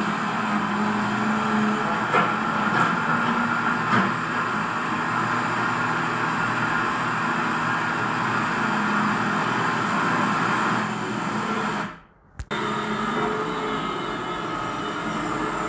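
Radio-controlled Caterpillar 336D model excavator's electric motors running with a steady mechanical whine and hum, with a couple of clicks in the first few seconds. The sound cuts out for about half a second around twelve seconds in, then resumes.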